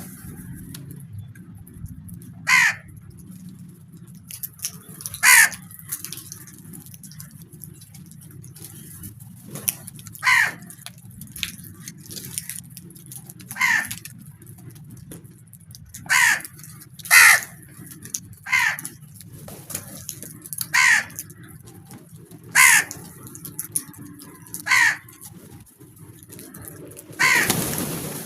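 A flock of crows cawing: single harsh caws, about a dozen, spaced one to three seconds apart. A low steady rumble runs underneath.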